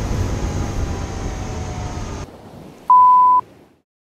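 Car driving noise, a steady low rumble with a faint falling whine, cuts off suddenly about two seconds in. It is followed by a short, loud, steady test-tone beep of the kind played with TV colour bars, then silence.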